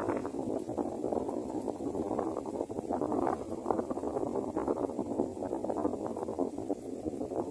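Wind buffeting the microphone: a steady, rough crackling noise.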